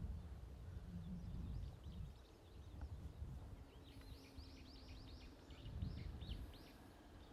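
A songbird singing a quick run of short, falling high notes, about four a second, in the second half, with fainter chirps earlier, over a low outdoor rumble.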